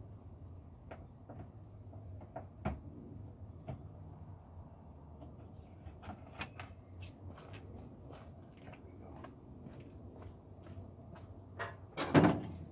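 Scattered light clicks and knocks of hand work on a car, with a louder knock and clatter near the end.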